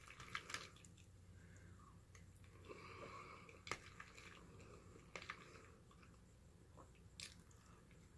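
Near silence with a few faint clicks and soft food-handling sounds, as hot sauce goes onto a bowl of mac and cheese.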